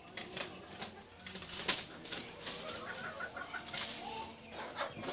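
Chicken clucking, with a quick run of short notes about halfway through, over a few sharp clicks.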